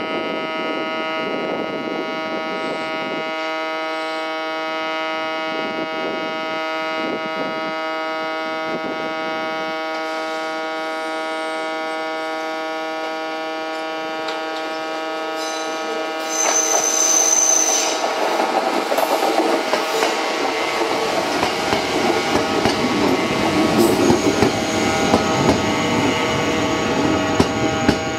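A steady electric hum, then from about 16 seconds in a Sanyo Electric Railway local train arriving: a brief high squeal and the rumble and clatter of wheels on the rails, growing louder as it comes alongside.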